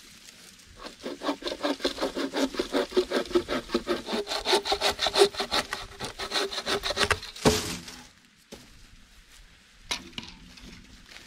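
Hand saw cutting through wood in fast, even strokes, about six a second, for roughly seven seconds. It stops with one sharper stroke, followed by a few faint knocks.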